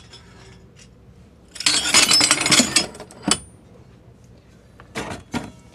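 Plasma-cut 1095 steel knife blanks clattering against one another in a cardboard box as they are shuffled: a dense metallic rattle lasting about a second and a half, then a single clink, and two more sharp clinks near the end.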